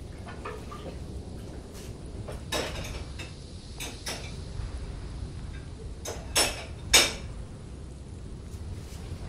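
Kitchen clatter of dishes and utensils: a handful of short knocks and clinks, the loudest two close together about six and seven seconds in, over a low steady room hum.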